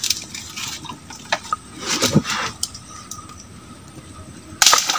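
Light knocks and clinks, with small water sounds in a shallow pond, then a loud, sharp splash about four and a half seconds in.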